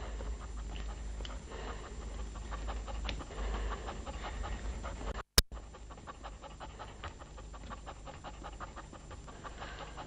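Dog panting in a steady rhythm of short breaths. About halfway through, the sound drops out for a moment and there is a single sharp click.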